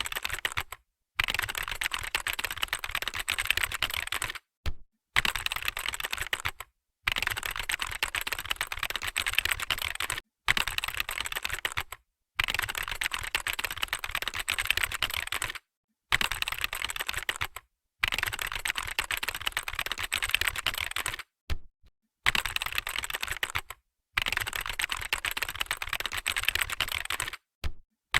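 Fast typing on a computer keyboard: a dense run of key clicks, broken by short silent pauses every second or two.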